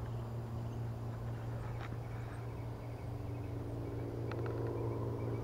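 Steady low mechanical hum of a running motor, with a few faint ticks.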